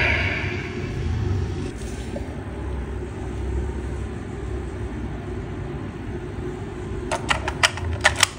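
A DX Blazar Brace toy's electronic sound effect fades out at the start, followed by a steady low background rumble. Near the end come about six sharp plastic clicks as a Z Stone disc is slotted into the brace.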